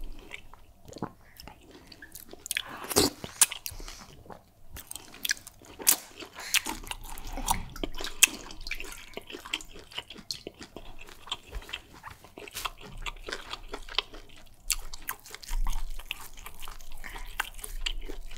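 Close-miked wet chewing and mouth sounds of eating fufu with egusi soup: many irregular sticky smacks and small clicks, with a few louder smacks.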